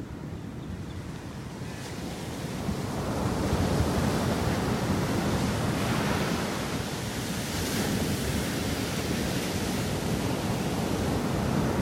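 Ocean surf breaking and washing up onto a sandy beach, a steady rushing hiss that grows louder about three seconds in as the waves come in closer.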